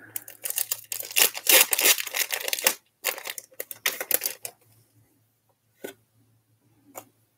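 Foil wrapper of a Pokémon trading card booster pack being torn open and crinkled, a dense ripping and rustling through the first four and a half seconds. Two brief ticks follow near the end.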